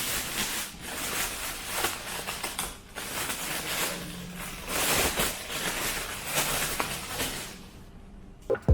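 Rustling, scraping handling noises with small clicks and knocks as the espresso machine and its packaging are moved about. Music with a beat starts right at the end.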